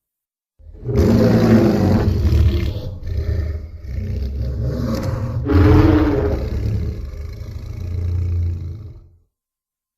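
A cartoon creature's long, low roar, about eight seconds long, swelling louder again about halfway through.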